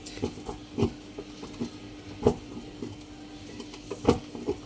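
Scattered clicks and knocks, a second or so apart, the loudest about two and four seconds in, from washing machine parts being handled and opened up for cleaning, over a steady faint hum.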